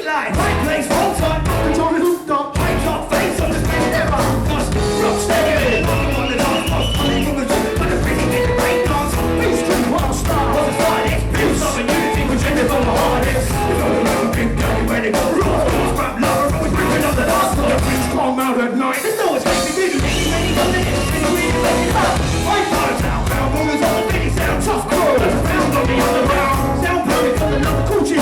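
Live band playing a hip-hop number with vocals over it. The bass drops out briefly about two seconds in and again for about a second past the middle.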